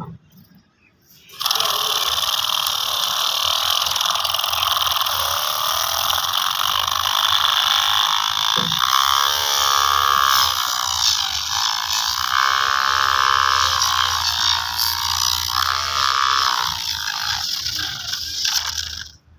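The small electric motor and gearbox of a wire-powered DIY toy tractor running steadily while it pushes soil with its blade. The whine shifts in pitch now and then as the blade takes the load. It starts about a second and a half in and stops just before the end.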